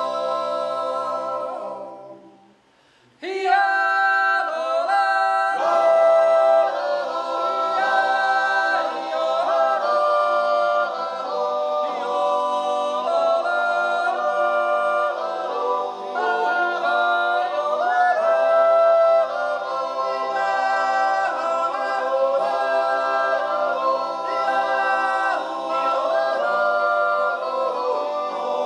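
Swiss men's yodel choir singing a cappella. The singing fades out about two seconds in and, after about a second's pause, starts again.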